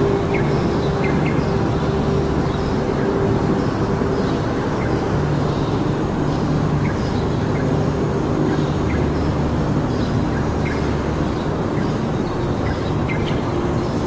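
A loud, steady low mechanical rumble like a running engine, with a few faint, short bird chirps scattered over it every second or so.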